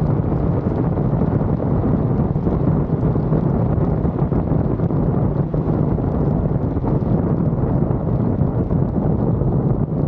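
Steady, heavy wind rush buffeting a microphone mounted on the roof of a Tesla Model Y Performance travelling at around 80 to 115 mph as it slows down.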